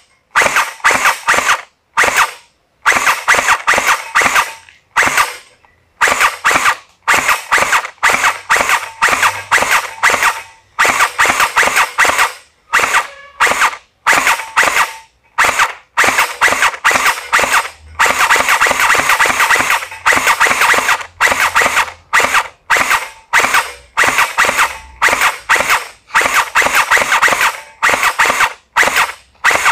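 HK416D gel blaster fired in semi-automatic mode: a long string of sharp single shots, several a second at times, with short pauses between groups.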